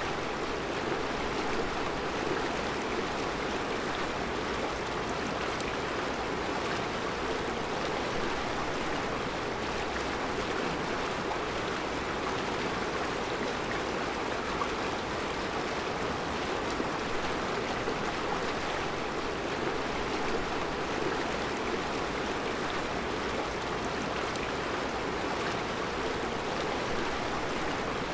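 Mountain river flowing steadily over round rocks in a rocky riverbed: an even rushing of water.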